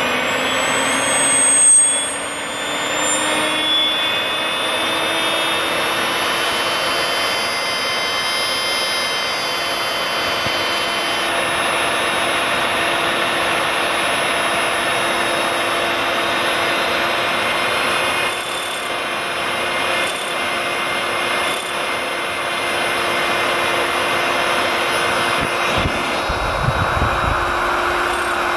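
GARTT HF6000S1 1220Kv brushless helicopter motor spinning a turbocharger compressor wheel at speed: a high, steady electric whine over a rush of air. The pitch climbs in the first few seconds, then holds. About two seconds before the end, a low rumble of air buffeting comes in briefly.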